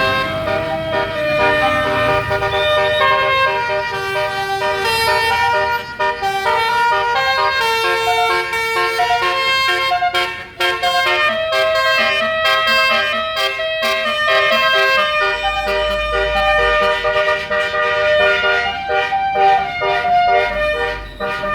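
Basuri telolet horn on a tour bus playing a melody: a continuous run of loud, quickly changing horn notes, several sounding together.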